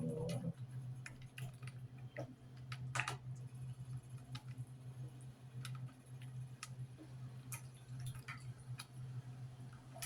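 Scattered light clicks and taps from kitchen handling while chicken is being seasoned, over a steady low hum.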